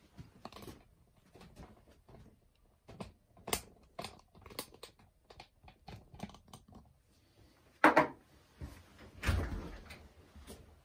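Handling noise of gold bars and tools on a counter: a string of light clicks and taps, a sharp knock about eight seconds in, then a brief scuffing rush.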